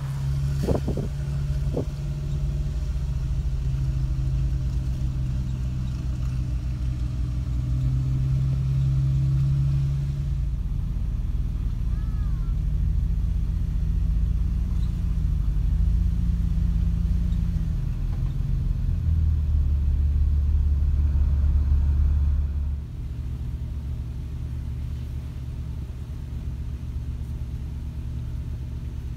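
Off-road vehicle engine running with a low, steady drone, its pitch stepping up and down a few times as the revs change. There are a few knocks near the start, and the engine gets quieter about three-quarters of the way through.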